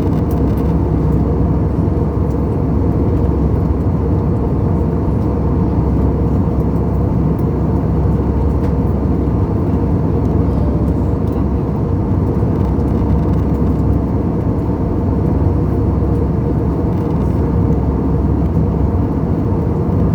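Airbus A320 airliner's steady low drone of engines and airflow, running evenly without rising or falling.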